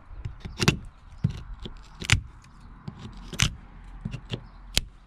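Hand scraper picking and scraping at flaking paint and an old epoxy patch on wooden boat hull planking: irregular sharp scrapes and clicks, the loudest about every second and a half, with lighter ticks between.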